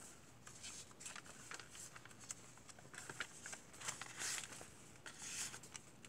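Pages of a handmade paper junk journal being turned and handled: faint, brief paper rustles and brushes, with a louder swish about four seconds in and another a little after five.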